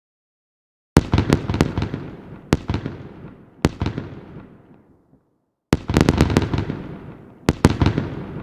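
Aerial fireworks bursting: a rapid volley of sharp bangs about a second in, then two single bangs, each dying away in a long echoing tail. After a short lull a second volley of bangs follows.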